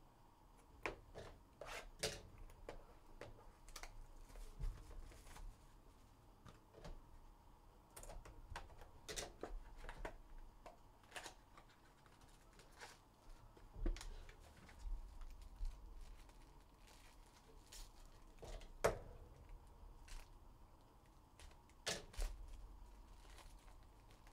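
Hands handling and opening a cardboard trading-card box: scattered quiet taps, scrapes and rustles of cardboard and foil packs, with a few sharper knocks.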